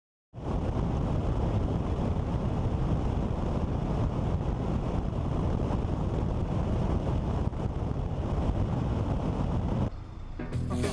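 Wind rushing over a camera mounted on the outside of a moving car, with road and engine noise underneath. It starts abruptly, drops near the end, and music comes in.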